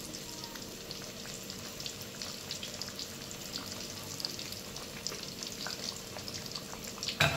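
Small sweet flour-and-jaggery tikkis frying in hot oil in a kadhai: a steady sizzle with fine crackling. A short loud knock near the end.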